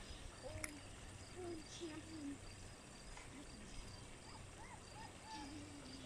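Faint outdoor yard ambience: an insect chirping high and evenly, about three times a second, with faint distant voices scattered through.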